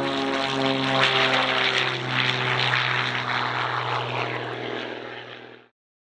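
Twin-engine propeller plane's piston engines running as it rolls down the runway, a steady propeller drone with a rushing noise. It swells about a second in, then gradually fades, and cuts off abruptly near the end.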